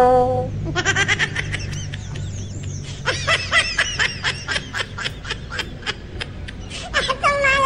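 High-pitched cartoonish laughing sound effect: rapid snickering giggles, with a stronger run of them near the end.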